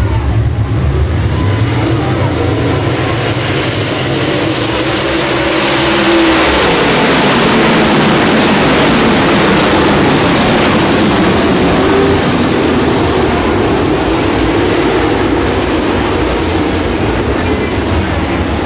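Dirt late model race cars' V8 engines running hard as the field laps the oval, with engine notes rising and falling. The sound swells to its loudest from about six to thirteen seconds in, as the pack passes closest.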